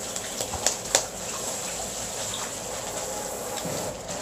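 Noise putty being pulled and pressed by hand, with a few short sticky clicks and squelches in the first second over a steady background hiss.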